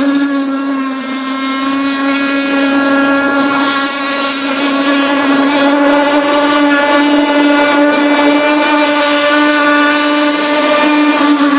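Seaducer mono-hull RC boat's OS Max 50SX Hyper Ring two-stroke glow (nitro) engine running at speed, a loud buzzing whine that holds a nearly steady pitch throughout.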